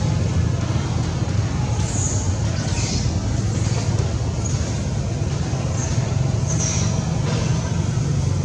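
A steady low engine rumble, with a few short high chirps now and then.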